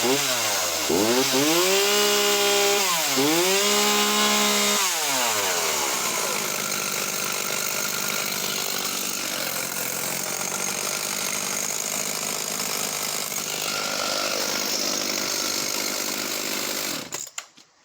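Ryobi Power XT 42cc two-stroke chainsaw engine revved hard several times, held at high speed for about two seconds twice, then dropping back to a steady idle. It is shut off abruptly near the end.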